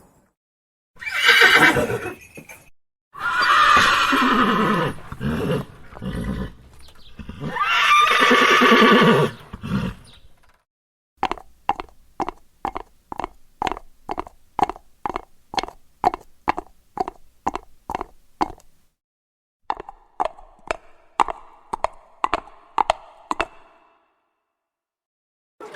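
Horse whinnying three times, each a loud call that falls in pitch, followed by hoofbeats clip-clopping in an even rhythm of about three a second, in two runs with a short break between them.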